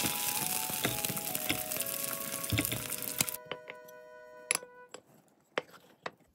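A crispy fried egg sizzling and crackling in oil in a nonstick pan as a spatula presses it. The sizzle cuts off about three seconds in, and a few light clinks follow, a ceramic bowl set on a plate. Soft background music with a melody plays throughout.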